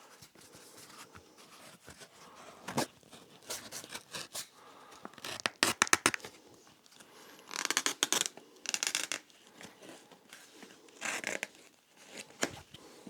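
A blade cutting into a leather shoe sole, heard as irregular rasping and scraping strokes. The loudest part is a quick run of sharp clicks about halfway through, followed by longer rasping strokes.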